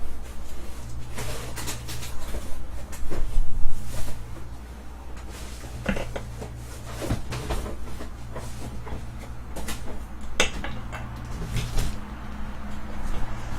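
Irregular clicks, knocks and rustles of card-break packaging being handled and opened, over a steady low hum.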